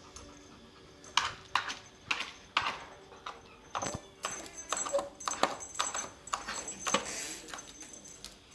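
A pet animal giving a run of short, sharp calls, about a dozen at an uneven pace, starting about a second in.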